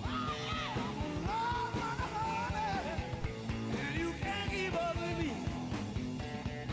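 Rock song with a sung vocal line over drums and a steady beat.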